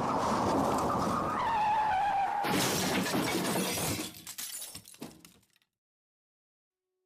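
A sudden crash with shattering and breaking about two and a half seconds in, over a loud noisy rush. Just before it a squeal glides down in pitch, and the clatter of falling pieces dies away over the next three seconds.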